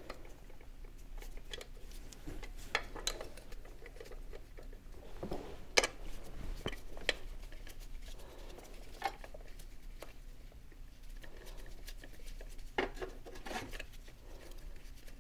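Scattered small clicks and taps of hand tools and small metal fasteners being handled while the old rotor is taken out of a Chevy 350 V8's distributor. The sharpest click comes about halfway through, and a few more come close together near the end.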